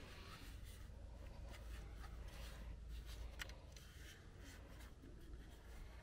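Faint scattered clicks and rubbing of a hard plastic part being handled and turned over, over a steady low rumble.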